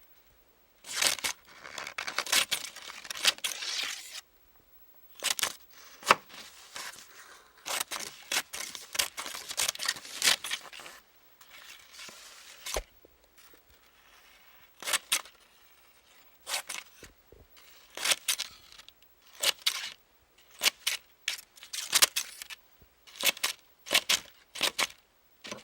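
Scissors cutting. A long run of quick snipping fills the first half, then the blades close in separate sharp snips about a second apart.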